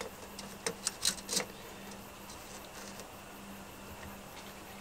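Steel tape measure being drawn out and laid along a plywood board: a few light clicks and rattles in the first second and a half, then quiet.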